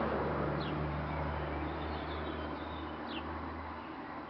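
Short, falling high chirps of a small bird, once about half a second in and again around three seconds, over a steady outdoor background of hiss and low hum.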